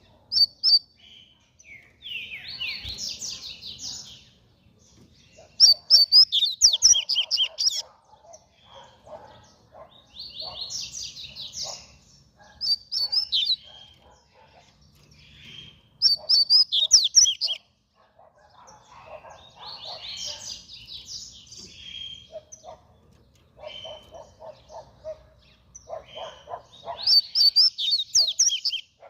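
Double-collared seedeater (coleiro) singing its fast song: bursts of rapid, high, trilled notes repeated every few seconds, with softer, lower notes between the phrases.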